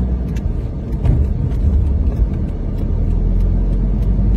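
Car running on city streets, heard from inside the cabin as a steady low rumble of engine and tyres, with a light, regular ticking about two to three times a second.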